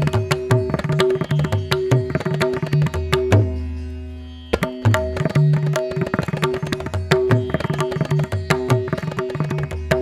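Background music with a fast, rhythmic percussion beat over held notes; it fades and starts up again about halfway through.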